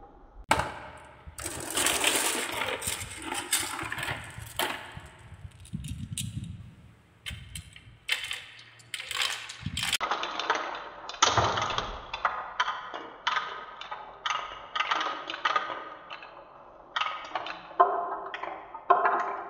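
Glass marbles rolling and clacking on wooden marble-run tracks, with a low rolling rumble and clicks as they drop and knock together. In the second half a stream of marbles circles a wooden spiral, giving a steady series of clinks about two a second.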